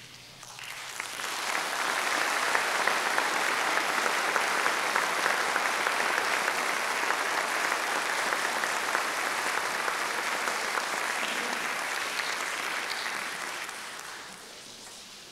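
Audience applauding just after a concert band finishes a piece. The applause swells over the first second or two, holds steady, then dies away near the end.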